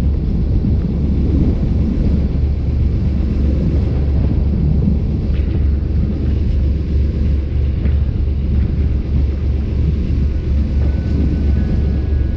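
Motorboat under way: a steady, loud low rumble of the engine and wind buffeting the microphone.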